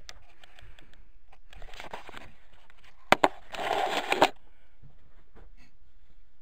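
Camera rubbing and bumping against clothing as it is handled: scattered rustles and ticks, two sharp clicks just after three seconds in, then a louder burst of fabric rustling that stops about a second later.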